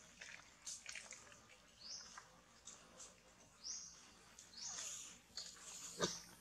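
Faint high-pitched chirping calls repeating every second or two over quiet forest background, with light rustles and a louder sharp sound about six seconds in.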